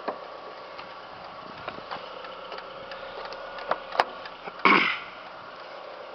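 A 2002 Mazda Protege5's four-cylinder engine idling faintly, under light clicks and one louder short knock a little past halfway as a car door and its sill are handled.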